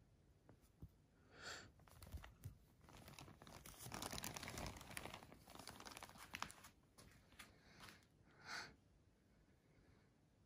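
Thin plastic shopping bag crinkling and rustling as a cat shifts about inside it, with a dense run of crackling in the middle and scattered rustles either side.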